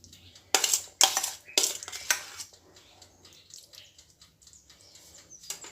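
A spoon clinking against a bowl while scooping out meat pie filling: four sharp knocks in the first two seconds or so, then fainter light scrapes and taps.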